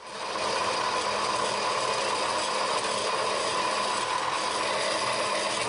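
Harbor Freight vertical bandsaw running, its blade cutting through a hand-fed length of metal pipe. The sound comes up quickly at the start, then runs steady and even.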